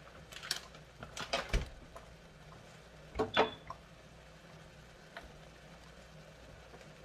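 A few short clinks and knocks of kitchen utensils and cookware, the loudest pair about three seconds in, over a faint steady sizzle of diced onions and peppers sautéing in oil.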